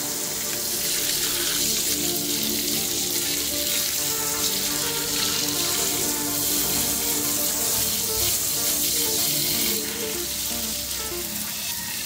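Water spraying from a brass hose nozzle in a fine jet onto concrete, a steady hiss, with background music underneath.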